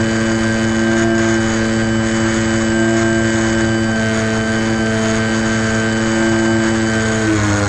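Electric motor and propeller of an FPV model airplane running steadily under power, a hum with several held tones, all sliding down in pitch near the end as the throttle is eased back.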